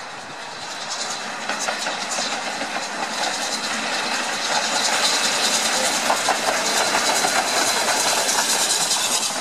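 A steam locomotive hauling a train of mail vans approaches and passes close, growing steadily louder over the first five seconds, with the rhythmic clatter of wheels over rail joints and a hiss of steam. A thin steady high tone runs underneath.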